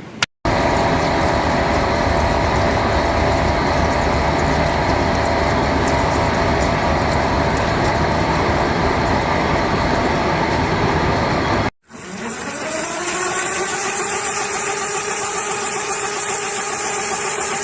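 Industrial machinery running loudly and steadily. After a sudden cut, a second machine's motor spins up with a rising whine, then runs at a steady pitch with a high-pitched tone above it.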